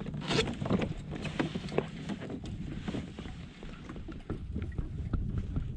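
Water sloshing and knocking against a kayak hull, with wind rumbling on the microphone and many small knocks and clicks; the sharpest knock comes about half a second in.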